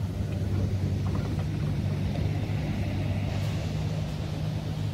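Excavator's diesel engine running steadily with a low hum, over the wash of surf breaking on the beach.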